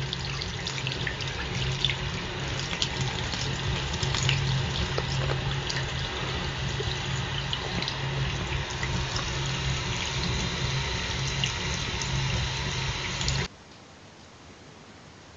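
Tap water running into a sink, a steady rush with small splashes and clicks, stopping abruptly near the end.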